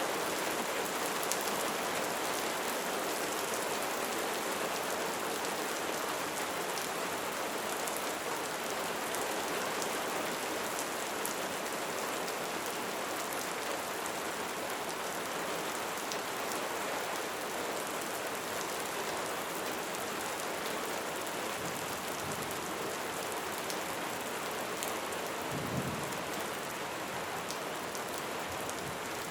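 Steady light rain falling, a continuous hiss of raindrops with scattered individual drop ticks. A brief low rumble about 26 seconds in.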